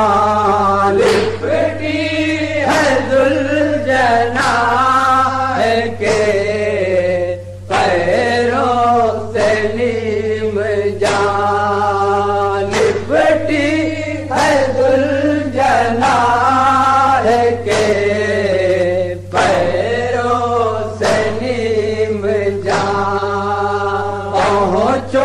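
Male voice chanting a nauha, an Urdu Shia lament, in long drawn-out sung lines with short breaks between phrases, over a steady low hum.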